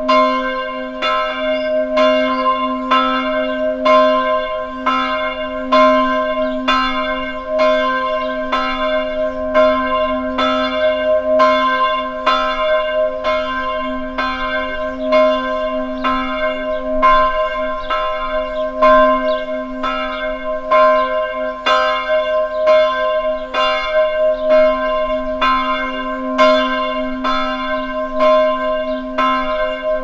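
Church bells ringing continuously, struck in a rapid, even succession, each strike's ringing running on into the next so that a steady hum lies under the strokes.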